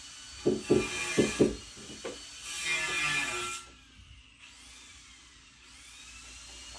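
Construction tool sounds on wood: several sharp knocks in the first second and a half, then a rasping stretch like sawing, then quieter.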